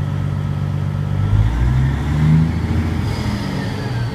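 Caterpillar 3406B inline-six diesel running in the truck cab after a fuel-filter change, back to steady running with fuel pressure up to about 50 psi. The engine rises in pitch briefly around the middle and settles back. A high whine falls away near the end.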